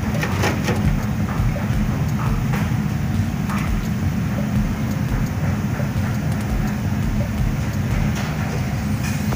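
Breaded chicken wings deep-frying in a wire basket in a stainless steel deep fryer, the oil bubbling with scattered crackles over a steady low rumble.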